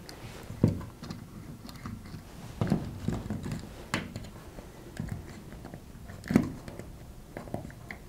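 Small handling noises as the earth wire's insulation sleeving is swapped and the wire is worked into the switch fascia's earth terminal: scattered light clicks and rustles, with a sharper click about six seconds in.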